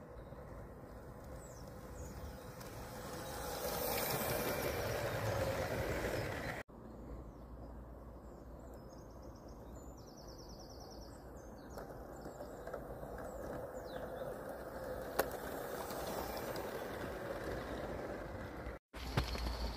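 Small battery-electric model locomotive and its coaches running along garden-railway track, louder as the train nears the camera and passes close by.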